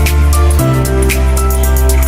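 Background music: an electronic track with held synth chords, a deep bass line and regular hi-hat-like ticks.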